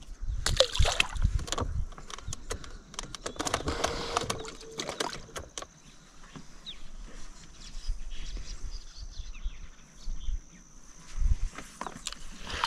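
Handling noise: a busy run of sharp clicks and knocks over the first few seconds, then quieter, scattered small knocks and low thumps.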